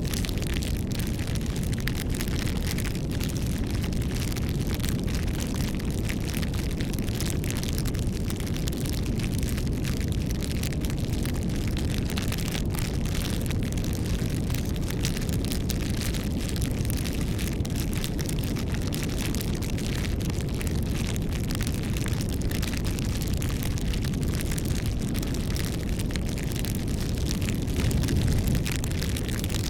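Wood fire crackling, with a steady low rumble under a constant scatter of small pops and snaps; a slightly louder flare of crackling near the end.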